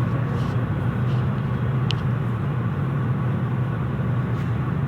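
Steady low rumbling background noise with no speech, and a brief high-pitched blip about two seconds in.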